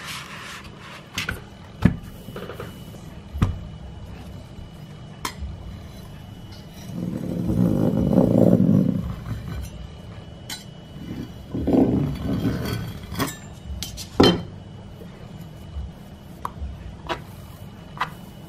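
Handling sounds of cutting pie dough around an upturned ceramic bowl with a knife and working it with a wooden rolling pin: scattered sharp knocks and clinks on the worktop, with a longer dull rumble about seven seconds in and a shorter one near twelve seconds.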